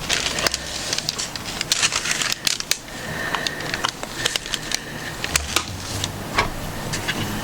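Irregular clicks and taps of plastic cookie molds being handled and pressed into rolled shortbread dough.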